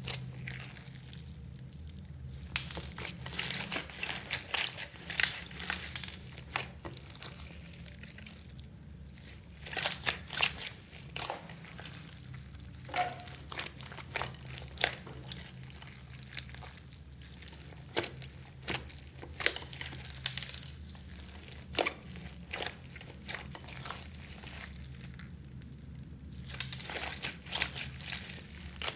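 Hands squeezing and kneading clear slime packed with foam beads and chopped plastic straw pieces: irregular clusters of sharp sticky clicks and pops, with brief quieter pauses between handfuls.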